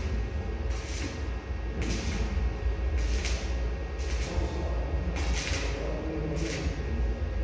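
Electric arc welding on a square steel-tube frame: short crackling bursts of arc, each about half a second, roughly once a second, as joints are tacked or stitched, over a steady low hum.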